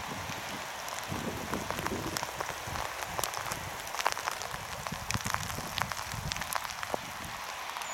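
An EN57 electric multiple unit passing at a distance: a steady rushing noise with low rumble and many irregular sharp clicks.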